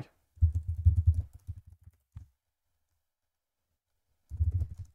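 Computer keyboard typing, dull quick keystrokes: a run of about two seconds, a pause, then another run near the end.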